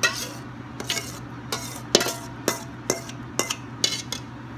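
Metal spoon scraping and knocking against stainless steel mixing bowls as wet banana muffin batter is scraped from one bowl into another: about ten sharp, irregular clinks.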